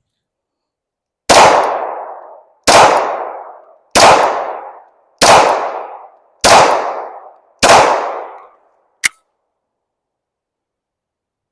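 Springfield Hellcat Pro 9mm pistol fired six times at a steady, unhurried pace, about one shot every 1.2 seconds, each shot trailing off in a short echo. A single short, sharp click follows about a second and a half after the last shot.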